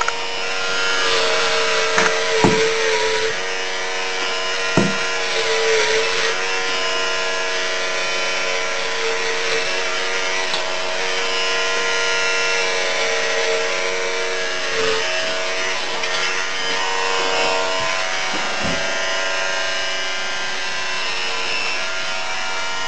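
Electric hair clippers running with a steady buzz while shearing hair off a head, with a rough rasping edge from the blades cutting. A few short knocks sound about two and a half seconds, five seconds and nineteen seconds in.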